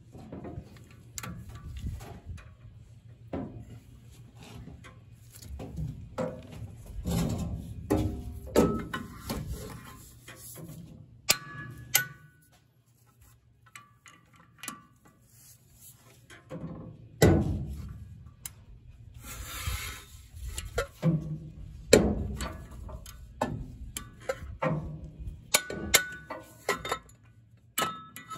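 Torque wrench and socket tightening the knife bolts on a Vermeer BC1500 chipper drum to 210 foot-pounds: scattered ratchet clicks, metal clinks and knocks at irregular intervals, a few of them sharper and louder.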